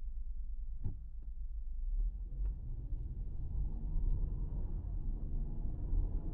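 Car pulling away from a stop, heard from inside: low engine and road rumble that grows fuller as it gathers speed, with a few faint clicks about a second in.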